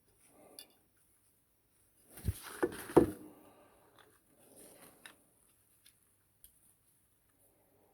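Small parts of a die-cast toy model being handled and fitted together: soft rustling with a cluster of three sharp knocks about two to three seconds in.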